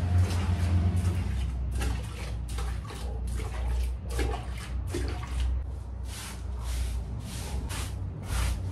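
Water thrown from a plastic bucket onto artificial turf in a series of splashes, then a broom scrubbing the wet turf in repeated swishing strokes.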